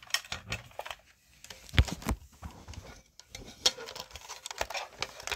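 Irregular clicks, taps and knocks of a fire alarm unit being handled, with two louder knocks about two seconds in.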